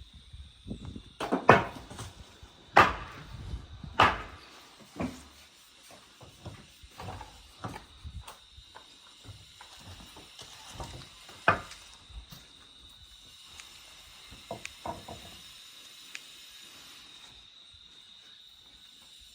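Scattered knocks and clatter, the loudest four within the first dozen seconds and fewer and fainter after that, over a steady high insect drone.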